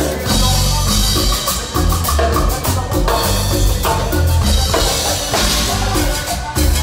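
Live Latin dance band playing at full volume, driven by congas, timbales and drum kit over a steady bass line.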